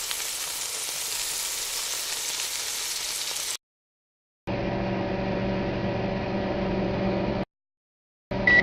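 Food sizzling in a frying pan, an even hiss for about three and a half seconds. After a second of silence, a steady electric hum for about three seconds. A short high beep right at the end.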